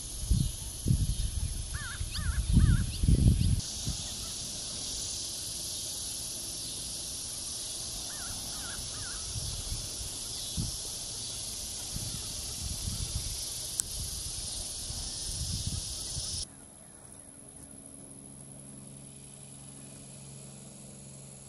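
Outdoor summer ambience: a steady high insect drone, with a bird calling in short runs of three notes twice. Low rumbles of wind on the microphone come in the first few seconds. The drone cuts off suddenly about three-quarters of the way through, leaving only a faint low hum.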